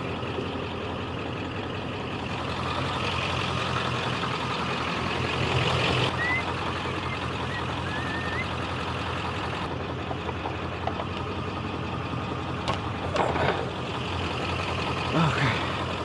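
A vehicle engine idling steadily, with a couple of sharp knocks about three-quarters of the way through as lockout tools are worked against a pickup truck's door.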